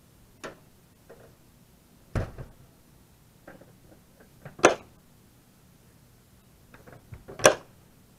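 Rear ramp door of a Forest River Wolf Pup 17RP toy hauler being shut: a heavy thud about two seconds in as the ramp closes against the trailer, then two sharp clacks, one midway and a louder one near the end, as its latches are fastened.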